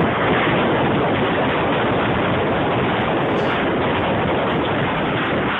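Loud, steady rush of tornado wind buffeting the microphone, with no distinct pitch and no breaks.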